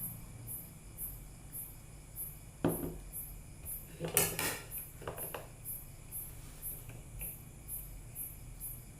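Cutlery clinking against dishware a few times, loudest about four seconds in, over the steady high chirping of crickets at about two chirps a second.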